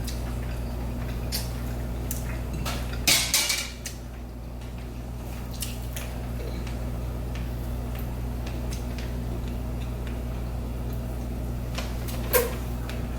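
Scattered clinks of dishes or a bowl, most of them bunched together about three seconds in, over a steady low hum.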